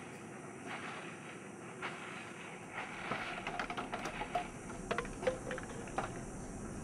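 Handling noises of a plastic cooler being carried to a car: a steady outdoor hiss, with a run of light clicks and knocks starting about three seconds in.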